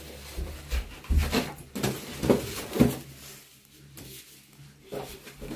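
Cardboard parcel being handled and cut open: a few short knocks and rustles in the first three seconds, then quieter fiddling with the packing.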